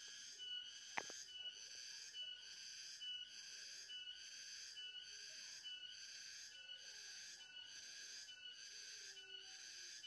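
Faint, even chirring of insects, pulsing about twice a second with a short high note in each pulse. There is a single faint click about a second in.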